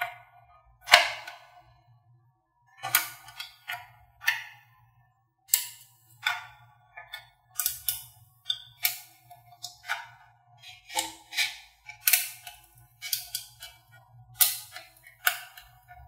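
Small neodymium magnet balls clicking and clattering as a strip of them is laid over a cardboard roof and pressed into place. Sharp clicks come in irregular clusters, the loudest about a second in.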